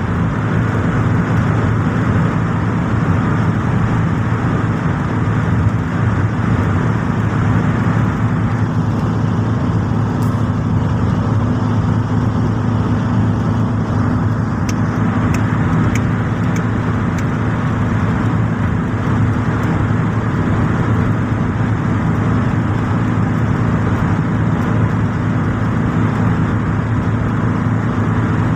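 Steady engine and tyre noise heard inside a car cruising at highway speed, with a constant low hum and a few faint ticks about halfway through.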